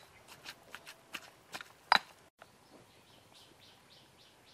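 Hands squishing and kneading a thick wet spice paste in a stone mortar, a run of short sharp smacks and clicks with the loudest about two seconds in. After a sudden cut, faint repeated bird chirps.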